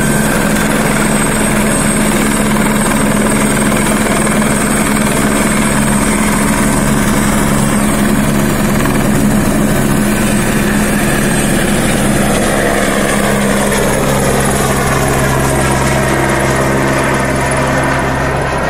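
Airbus H125 (Écureuil) single-turbine helicopter hovering close by, a loud steady rotor and turbine sound. In the second half the pitch of its whine slides down as it moves off overhead.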